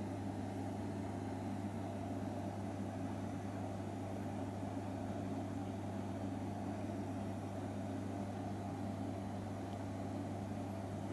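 A steady low machine hum that does not change.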